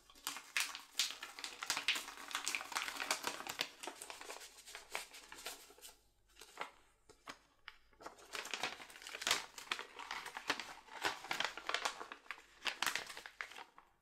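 Paper rustling and crinkling as a folded letter is handled and unfolded. It comes in two spells, with a lull of about two seconds partway through.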